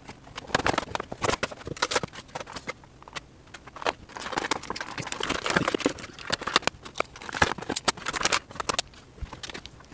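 Action figure packaging being opened by hand: plastic crackling and rustling with many scattered clicks and taps, busiest in the middle of the stretch.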